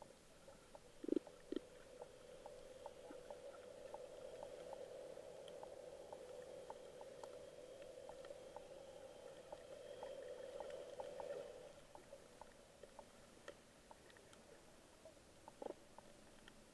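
Faint underwater ambience on a coral reef: scattered small clicks and crackles, with two louder pops about a second in. A steady low hum runs through most of it and fades out about two thirds of the way through.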